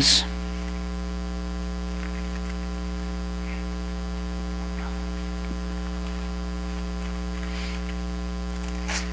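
Steady electrical mains hum with a stack of even overtones, with a few faint, brief rustles over it.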